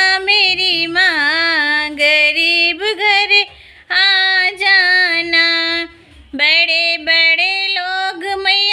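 A woman singing a Hindi devi geet, a devotional song to the Mother Goddess, solo, in long held notes that bend and waver, with two short pauses for breath, about a third and two-thirds of the way through.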